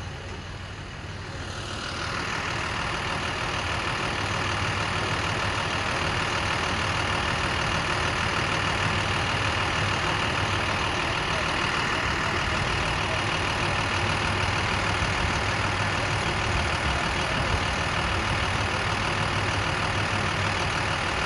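Diesel engine of an International armored truck idling steadily, swelling over the first two seconds and then holding an even low hum.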